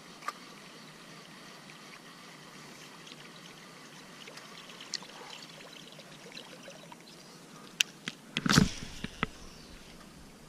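Water trickling and lapping against a small boat, with scattered light clicks. About eight and a half seconds in there is a louder thump, with sharp clicks just before and after it.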